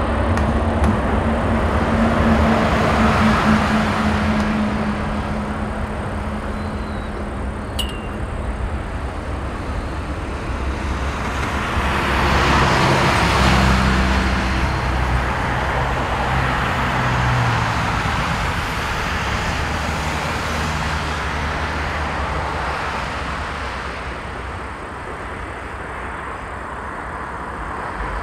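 Airbus A350-900's Rolls-Royce Trent XWB jet engines at take-off thrust during the take-off roll: a continuous jet roar with a low hum that swells about twelve seconds in and then slowly fades as the aircraft heads away down the runway.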